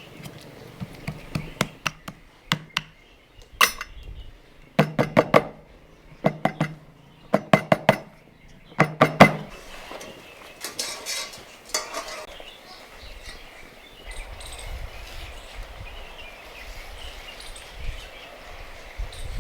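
Metal cooking utensils and pots clinking and knocking, in quick groups of three or four strikes, then a softer scraping clatter.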